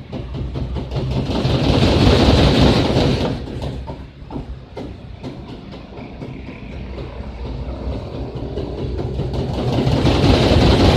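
LG Turbo Drum WF-T9001S top-loading washing machine running with its drum turning. The noise swells about two seconds in, eases off around four seconds, and builds again toward the end.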